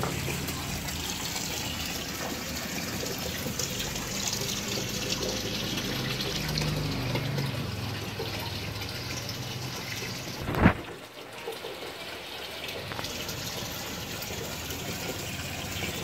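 Steady running and splashing water in an outdoor fish tank. A single sharp knock about ten and a half seconds in is the loudest sound.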